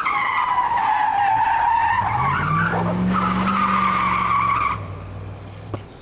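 Race-car sound: a loud, high tyre-squeal tone that starts abruptly, sags slightly and stops about five seconds in, with a low engine rev rising beneath it around the middle. It goes with the small yellow toy sports car. A single click follows near the end.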